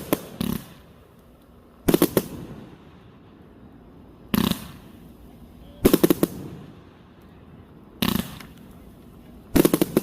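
Fireworks going off in a regular series: about six bursts roughly two seconds apart, each a quick cluster of sharp cracks.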